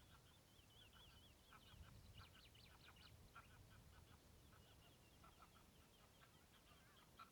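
Faint birdsong: a wavering trill for the first second or so, then a run of short, quick calls, over a low rumble.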